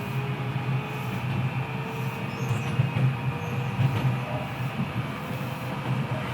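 Kita-Osaka Kyuko 9000 series electric train running at speed, heard through the floor above the motor. The Toshiba IGBT VVVF inverter and permanent-magnet synchronous motors give thin, nearly steady whining tones over the rumble of wheels on rail.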